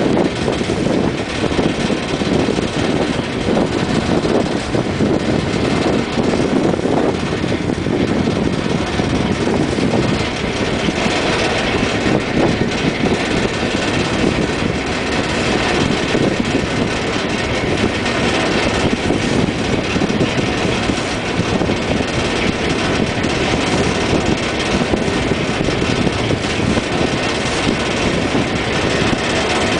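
River ferry's engine running steadily under way, a loud, even drone.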